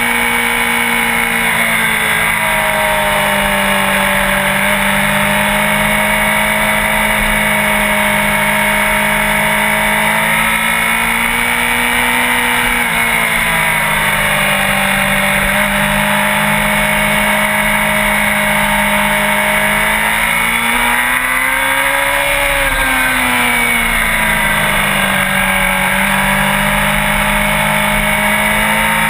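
Sport motorcycle engine running at a steady cruise, its pitch easing down and back up a few times, with one longer rise and fall a little past two-thirds of the way through.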